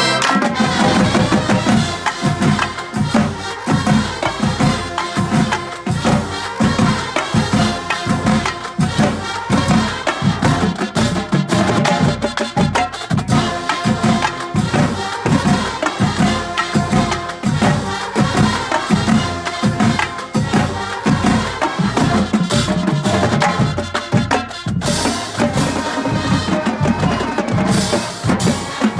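Marching drumline playing a fast, driving percussion cadence: repeated drum strokes with sharp, clicky, wood-block-like hits, with splashes of cymbal-like hiss near the end.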